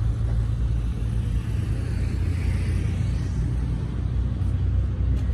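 An engine running at a steady idle: a constant low rumble with no change in speed.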